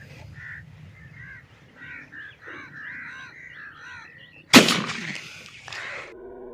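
Birds calling with many short chirps, then, about four and a half seconds in, a single loud shotgun blast whose echo trails off over a second or so.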